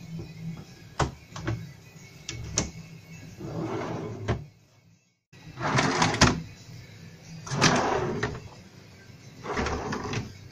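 Plywood drawers on metal telescopic drawer slides being pulled out and pushed shut: four sliding runs under a second long, about two seconds apart, after a few sharp clicks and knocks from the drawers being handled.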